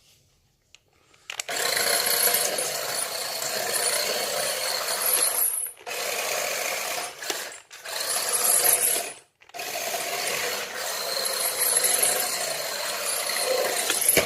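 Small electric motor and plastic gear train of a toy RC Subaru running under power as it is driven, a dense gear whine starting about a second and a half in and cutting out briefly three times as the throttle is released and reapplied.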